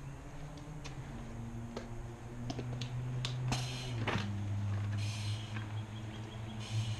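Firefighter breathing through an SCBA facepiece and regulator: four hissing breaths of air in the second half, over a low steady hum. A few sharp clicks come in the first three seconds as the gear is put on.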